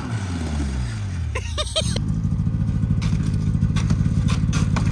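Snowmobile engine coming off the throttle, its pitch falling as the machine slows to a stop, then idling steadily from about two seconds in.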